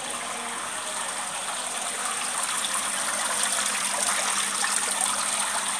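Decorative water-wall fountain: a sheet of water running down its clear panel with a steady splashing trickle, growing slightly louder after about two seconds.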